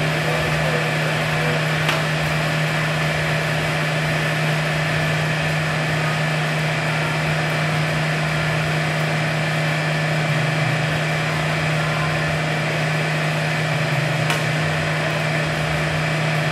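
Steady drone of the hydraulic loading system running a fatigue test on a concrete girder, with a strong constant low hum. There are two faint clicks, about two seconds in and near the end.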